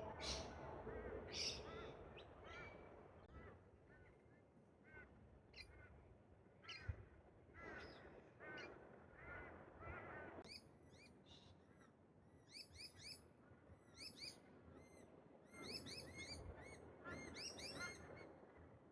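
Wild birds calling: scattered harsher calls in the first half, then quick runs of short, high chirping notes in the second half.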